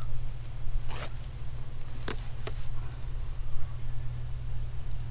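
Electric poultry netting being rolled up by hand, with three sharp clicks as its plastic posts knock together, over a steady low rumble.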